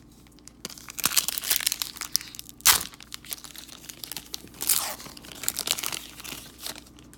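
A Panini Prizm basketball card pack wrapper being torn open and crinkled, a run of crackling rustle with a sharp tear a little before the middle.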